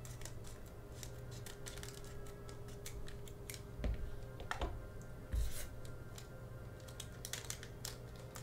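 Scissors snipping through a foil trading-card booster pack, and the wrapper crackling as hands work it open, with quick clicks throughout. Two dull thumps come about four and five and a half seconds in.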